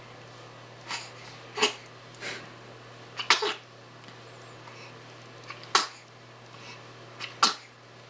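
Newborn baby sneezing over and over: about six small, sharp sneezes a second or two apart.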